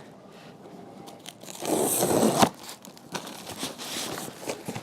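A cardboard shipping box being opened by hand: a rip of about a second near the middle, then rustling and crinkling of packing paper with small clicks and knocks.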